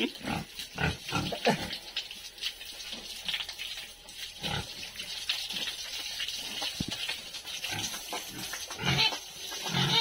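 Domestic pigs grunting repeatedly, in short separate grunts spread across the whole stretch.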